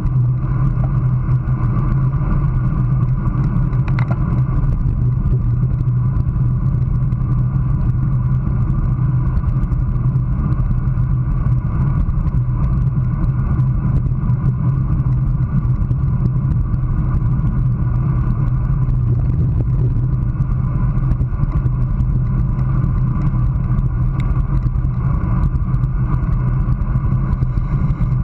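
Steady wind rush over a handlebar-mounted action camera's microphone, mixed with tyre and road noise from a road bike riding at about 22 mph.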